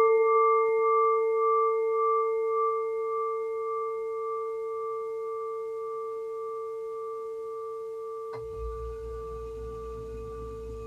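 A meditation bell, struck just before, ringing on and slowly fading: a low hum with higher overtones, one of them pulsing. Near the end a faint click, then a low rumble comes in under the ring.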